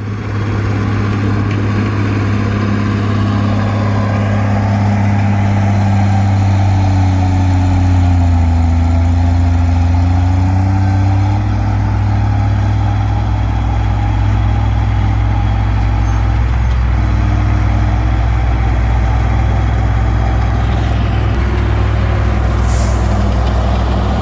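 Komatsu D20P bulldozer's diesel engine running steadily under work, its pitch sagging for a few seconds about a third of the way in and then picking back up. A brief high hiss comes near the end.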